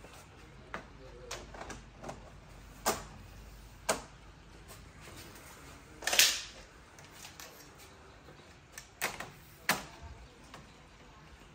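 Scattered clicks and knocks of Samsung The Frame TV bezel strips being handled: picked up off the floor and pressed into place along the TV's edges. The loudest is a brief clatter about six seconds in.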